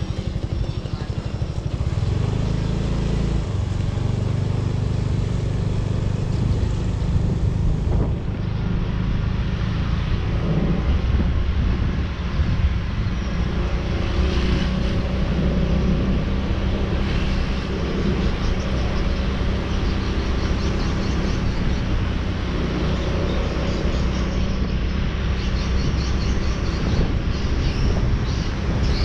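A motorcycle engine running as the bike pulls away and rides along, its pitch shifting with speed, under a steady rush of wind and road noise.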